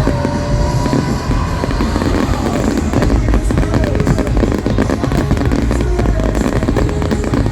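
Fireworks bursting and crackling in quick succession over loud show music.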